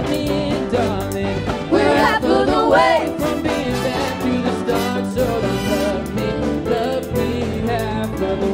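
Live big band playing a pop-funk tune: bass line, drum kit and horn section, with the lead singer's voice carrying a melodic line over it.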